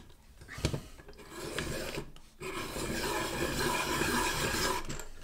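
Caran d'Ache hand-crank pencil sharpening machine cutting the wood of a Faber-Castell pastel pencil. A click comes a little under a second in, then a short stretch of shaving. After a brief pause the cutter shaves steadily with a rasping grind through the second half, stopping just before the end.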